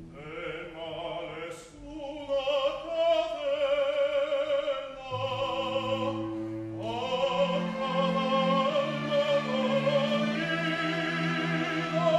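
A male operatic singer sings long phrases with a wide vibrato, with a short break between phrases. About five seconds in, a live orchestra comes in under him holding low, sustained notes.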